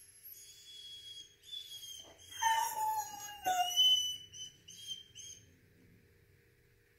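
Foxhound whining and crying at a high pitch in a string of drawn-out cries, with a louder, falling cry about halfway, then a few short whimpers. It is the distress cry of a dog left behind when its owner went out.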